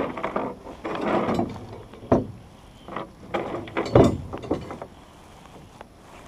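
Knocking and rubbing sounds in a rowing boat: a few scraping bursts, then two sharp knocks about two and four seconds in, with smaller knocks between.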